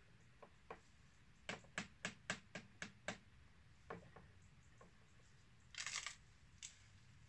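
A quick run of about six sharp clicks over a second and a half, with a few fainter clicks around them, then a short hiss near the end, all faint.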